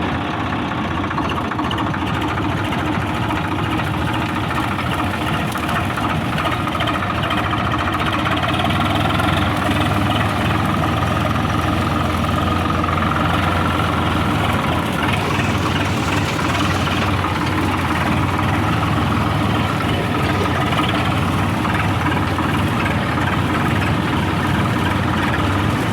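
Diesel engine of farm harvesting machinery running steadily at a constant speed, with a deep, even hum.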